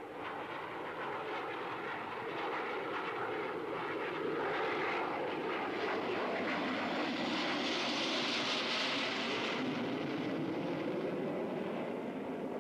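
Jet noise of a de Havilland Comet airliner flying past: a steady rushing roar that swells to a peak with a strong hiss about two-thirds of the way through, then eases off.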